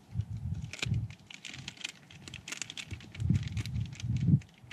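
Plastic snack wrapper crinkling and crackling in quick irregular clicks as it is handled, with dull low thumps, the loudest near the end.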